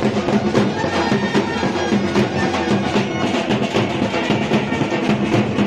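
Brass band music, with brass horns such as a euphonium playing over a steady drum beat.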